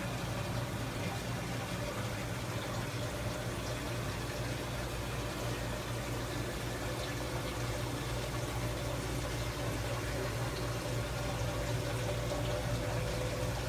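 Reef aquarium sump and plumbing running: a steady rush and trickle of flowing water over a constant low hum.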